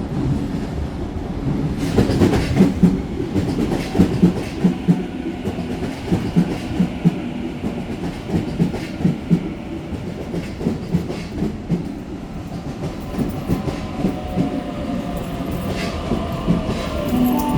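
Sydney Trains Waratah A set double-deck electric train rolling into the station, its wheels clacking in a regular rhythm over the rail joints. Near the end a whining tone joins the rumble.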